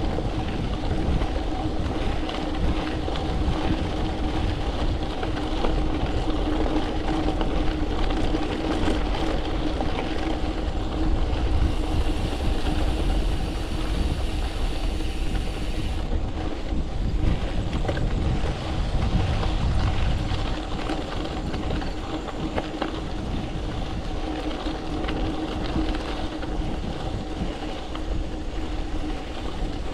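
Gravel bike rolling steadily: tyre rumble over the road surface, with a constant hum running through it.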